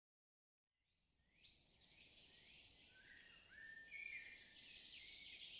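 Faint birdsong fading in after about a second of silence: several short chirps and whistled notes, some sliding down in pitch, over a soft outdoor hiss.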